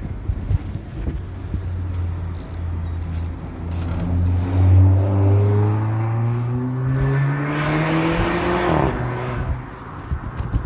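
Car engine running steadily, then revving up with a rising pitch for several seconds. Near the end the pitch drops sharply and the sound fades.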